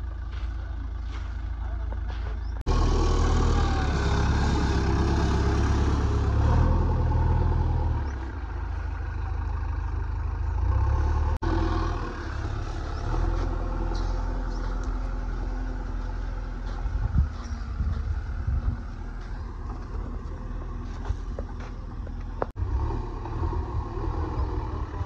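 JCB 3DX backhoe loader's diesel engine running as the machine works, with a deep steady rumble that grows louder about three seconds in and eases off after about eight seconds, broken by a few abrupt changes.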